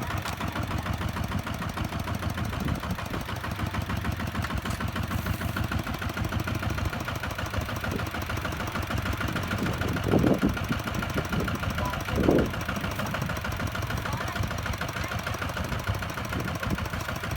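Single-cylinder diesel engine of a Kubota ZT-150 walking tractor running steadily with a fast, even chug. Two short louder bursts stand out about ten and twelve seconds in.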